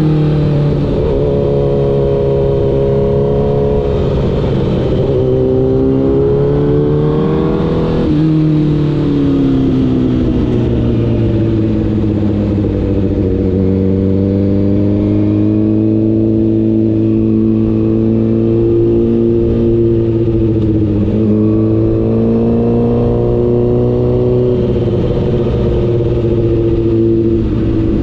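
Honda CBR1000RR inline-four engine running under way. The revs climb for several seconds, drop sharply about eight seconds in, ease lower and hold fairly steady, then rise a little near the end.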